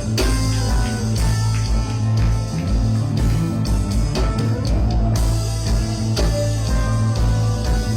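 Band music with electric guitar, bass and drum kit playing steadily.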